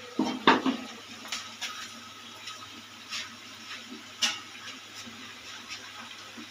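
Metal spoon clacking against a cooking pan, a few sharp knocks in the first second, then scattered faint taps over a steady low hum.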